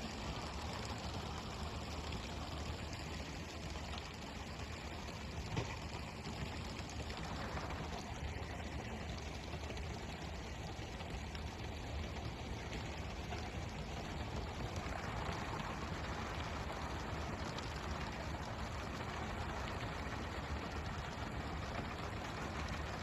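Steady rush of water alongside a pole-and-line fishing boat, over a low steady engine hum. A single brief knock comes about five and a half seconds in.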